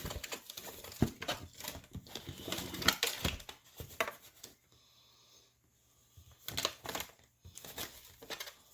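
Packaging crinkling and rustling in irregular bursts as a boxed part is handled, going quiet for a moment a little past halfway and starting again.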